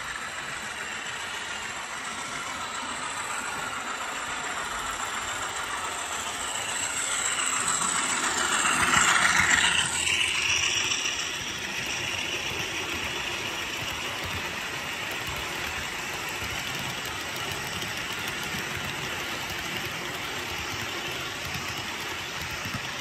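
HO-scale Rapido MLW M420W model diesel locomotive running past with its onboard diesel engine sound playing, growing louder to a peak about nine seconds in as it goes by, then steadier as its train of freight cars rolls along the track.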